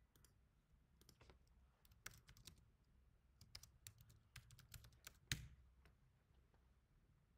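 Faint computer keyboard typing: a run of quick key clicks, with one louder click about five seconds in.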